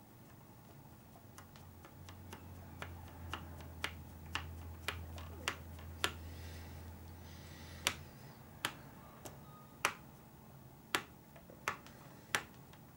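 Sharp clicks and taps of small hard parts and a hand tool being handled while a pillow ball screw is driven into the RC buggy's steering rack, one or two clicks a second. A low hum runs under the clicks for a few seconds in the middle.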